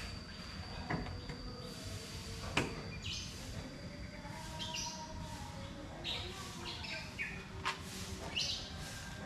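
Birds chirping in short high calls, repeated from about three seconds in, over a low background rumble. A few sharp knocks sound among them, the loudest one about two and a half seconds in.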